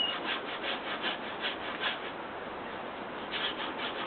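Hand saw cutting through wood with quick, even rasping strokes, about four or five a second. The strokes pause for about a second after the halfway mark, then resume near the end.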